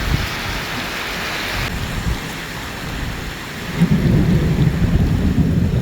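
Rain falling steadily, with a deep rumble of thunder rising about two-thirds of the way through and carrying on.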